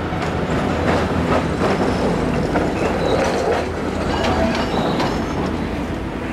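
Small diesel shunting locomotive passing close by at low speed: its engine runs under a steady rumble while the wheels click over the rail joints, with a few short metallic squeals from the wheels on the rails.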